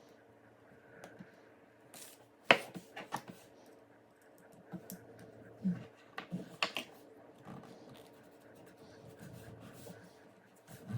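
Scattered clicks and light knocks from small parts and tools being handled, the sharpest about two and a half seconds in.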